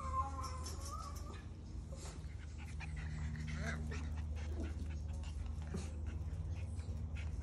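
Miniature Schnauzer puppies whining and whimpering. There is a high, wavering whine in the first second and a half and another rising-and-falling whine near the middle, over light clicks and scuffles and a steady low hum.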